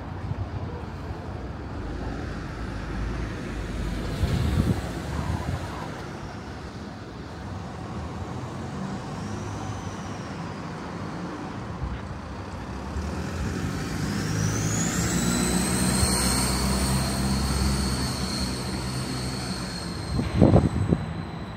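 Road traffic: motor vehicles running and passing, with a high whine that rises and then holds steady through the second half, and a brief loud knock near the end.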